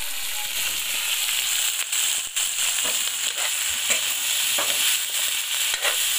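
Diced pork sizzling in hot woks, with a metal spatula scraping and knocking against the wok several times from about two seconds in as the meat is stirred.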